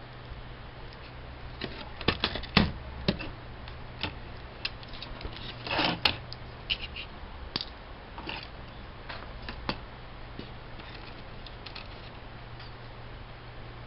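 Irregular small clicks and taps of a Sony VAIO VGN-CR laptop being taken apart by hand, with a brief scraping rustle about six seconds in, over a steady low hum.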